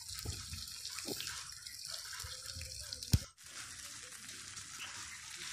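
Tilapia sizzling in oil on a dosa griddle: a steady frying hiss, with one sharp knock about three seconds in.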